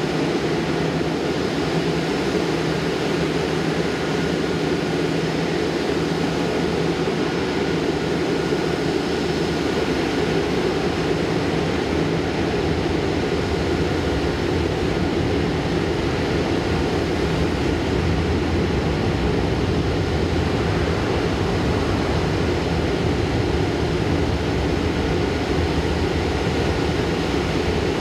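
De-icing trucks running and spraying heated de-icing fluid over an airliner: a steady mechanical rumble with a hiss and a faint steady whine, unchanging throughout.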